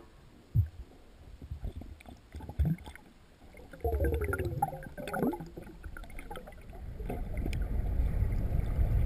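Underwater river sound as heard by a camera in its housing: a low rumble of flowing water with gurgling bubbles, building toward the end. A few dull knocks sound in the first three seconds.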